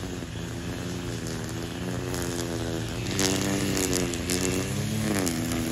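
A small engine-powered tool, of the chainsaw kind, running steadily; its pitch dips about five seconds in. From about three seconds in, light crackles and rustles join it.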